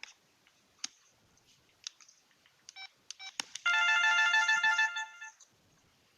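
LG CU500 phone's built-in ringtone playing through its small speaker: a short blip, then about a second and a half of a pitched electronic tune that cuts off suddenly, with a few faint clicks before it.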